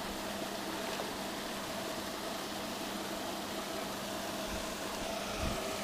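Steady hum of a fishery lake aerator running, with an even hiss of churned, bubbling water.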